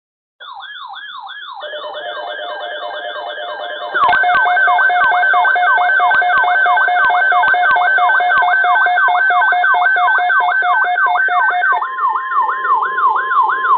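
Several electronic sirens layered together, each sweeping quickly up and down in pitch over and over in a yelp. They start about half a second in, grow louder in steps with a sharp jump about four seconds in, and near the end a steady tone sounds under the sweeps.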